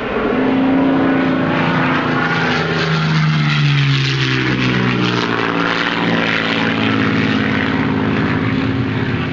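An aircraft flying past: steady engine noise with pitched tones that fall in pitch about three to five seconds in as it passes.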